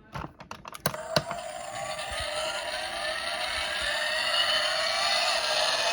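A few sharp clicks, then a toy truck's whirring motor-like sound that rises slowly in pitch and gets steadily louder, like an engine revving up.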